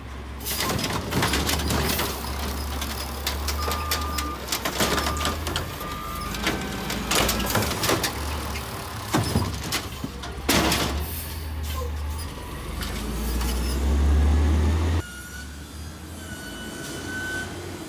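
Automated side-loader garbage truck working a pickup: the diesel engine runs steadily under its hydraulic arm as it grabs, lifts and empties a cart, with repeated clanks and bangs of the cart and arm. About three-quarters of the way through the noise drops off sharply to a quieter, more distant truck.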